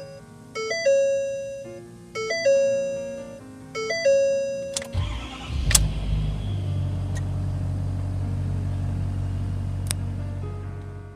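A multi-tone chime sounds three times, about a second and a half apart. About five seconds in, the Ford 6.7L Power Stroke turbo diesel V8 cranks and catches, then settles into a steady idle.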